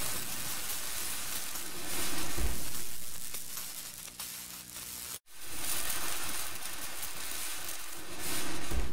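Fizzing, crackling hiss of a sparkler sound effect. There is a low thump about two and a half seconds in, a sudden cut to silence for an instant just after five seconds, and then the hiss resumes with another low thump near the end.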